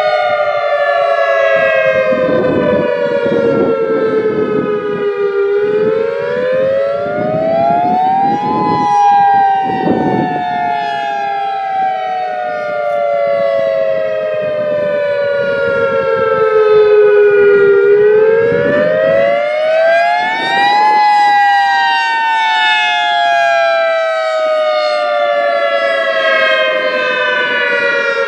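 Federal Signal EOWS 612 electronic outdoor warning siren sounding the attack (wail) signal. It is a loud tone that falls slowly over about ten seconds, climbs back up over about three seconds, and does this twice.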